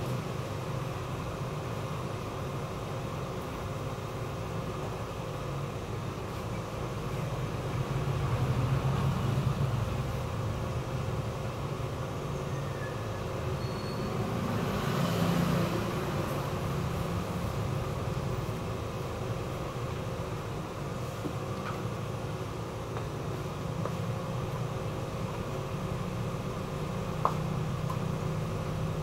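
Opened Ricoh photocopier switched on and idling: a steady low hum with a faint constant tone, swelling a little twice, and one sharp click near the end.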